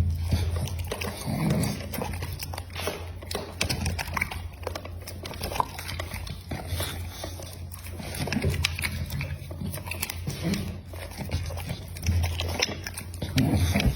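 An American Pocket Bully dog eating meat: chewing and crunching with many sharp clicks, and a few low throaty noises near the start, about halfway through and near the end.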